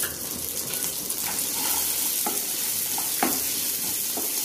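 Shallots, urad dal and dried red chillies sizzling in hot sesame oil in a frying pan as they are sautéed, with a steady hiss. A spatula scrapes and knocks against the pan a few times as it stirs.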